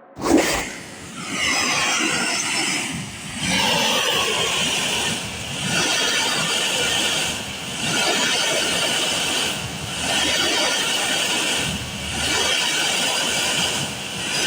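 Loud unexplained noise that seems to come from underground: a rushing hum with a strong high hiss, swelling and dipping in waves about every two seconds. It starts abruptly.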